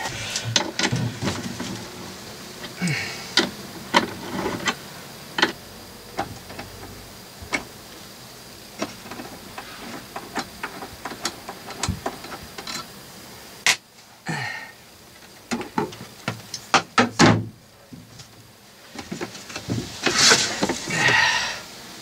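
Aluminium bus bars and cable ends clicking and knocking against lithium battery cases and terminals as they are handled into place, scattered irregular knocks with the loudest cluster about three quarters of the way through, then a scraping shuffle near the end.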